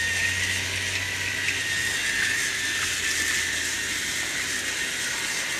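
Battery-powered toy train motors running on plastic track, with a steady high-pitched whine from the Tomy Plarail Skarloey's drive unit.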